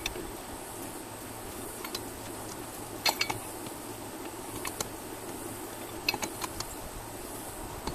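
Four-way lug wrench spun onto a truck wheel's lug nuts, giving irregular sharp metal clinks and rattles as the socket works on the nut. The loudest clinks come about three seconds in and again about six seconds in.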